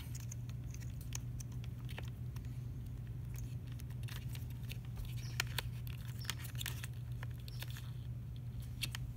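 Faint scattered clicks and rustling of thin wires and plastic crimp connectors being handled against a plastic A-pillar trim cover, over a steady low hum.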